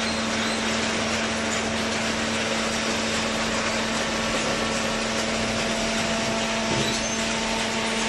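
Vertical hydraulic baler's electric motor and hydraulic pump running, a steady hum over a broad mechanical noise.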